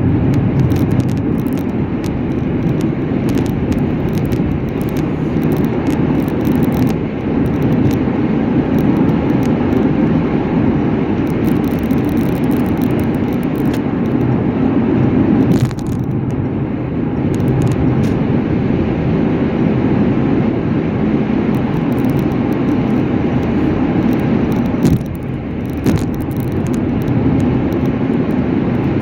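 Steady road and running noise of a vehicle travelling at speed, with many small clicks and rattles on top.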